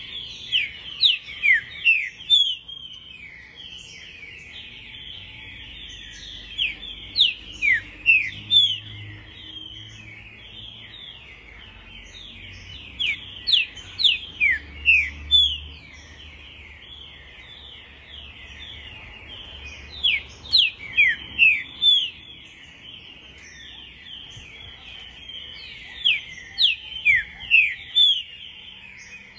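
Green-winged saltator (trinca-ferro) singing its "pampo" song. It gives five phrases, each a quick run of about five loud whistled notes, spaced about six seconds apart. Underneath runs a continuous busy twittering in the same pitch range.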